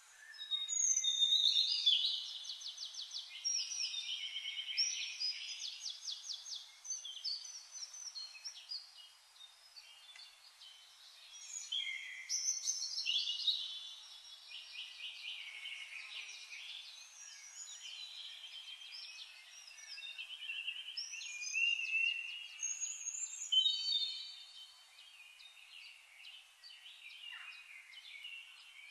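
Birds singing: overlapping rapid trills and chirps, with louder passages near the start, about twelve seconds in, and again a little past twenty seconds.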